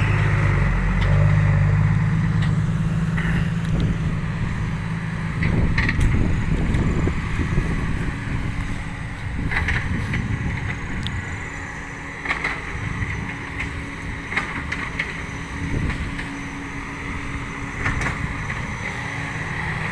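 Six-wheel dump truck's diesel engine running with a steady low hum, loudest in the first few seconds and then easing off, with scattered short rattles and knocks.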